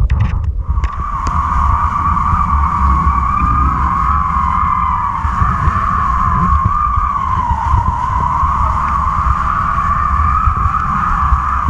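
Wind buffeting the microphone of a camera on a taut kite line, with a steady whistling hum from the line that wavers slightly in pitch while the rider is pulled across the water. In the first second, a few knocks as the camera scrapes along the sand.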